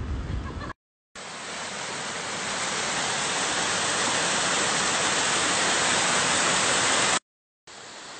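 Small waterfall rushing over rocks, a steady hiss of falling water that grows slowly louder and cuts off sharply about seven seconds in. A quieter run of the same water sound follows near the end. Wind rumbles on the microphone for the first split second.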